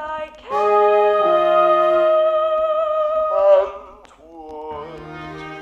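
Music: a long held sung note over sustained keyboard chords, scooping up at the start and wavering before it slides down about four seconds in, followed by quieter held chords.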